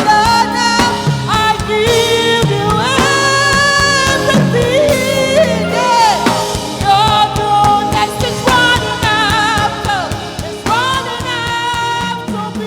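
Gospel worship music: a lead voice sings long, sliding and wavering notes without clear words over a full band accompaniment.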